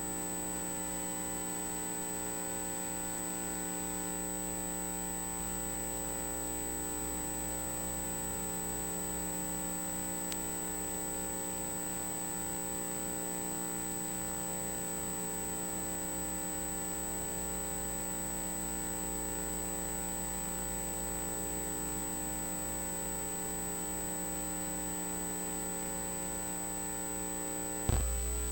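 Steady electrical mains hum with several constant tones and a high, thin whine. A sharp click comes just before the end, after which the low hum gets louder.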